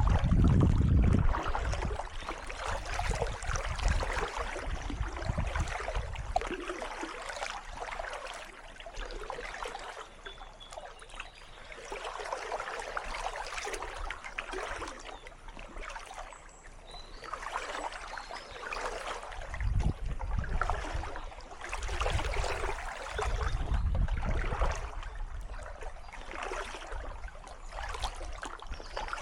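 Kayak paddle strokes splashing and dripping in calm water, the swash swelling and fading with each stroke. A low rumble comes in at the very start and again around two-thirds of the way through.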